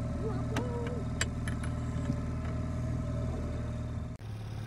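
Boat outboard motor running steadily at trolling speed, a low engine drone, with a few sharp clicks in the first second or so. The drone dips briefly about four seconds in and then carries on.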